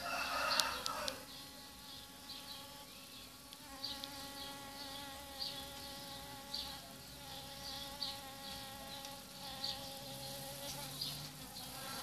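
Honeybee buzzing steadily as it forages in a flower. Faint high chirps repeat about once a second over it, and a brief louder burst of noise comes right at the start.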